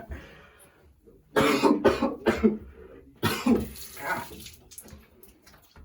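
A person coughing in a fit of sharp, repeated coughs. It starts about a second and a half in and comes back in a second, shorter run a little later.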